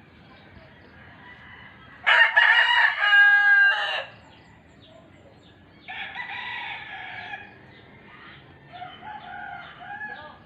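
Rooster crowing: one loud crow of about two seconds, followed by two quieter calls a few seconds later.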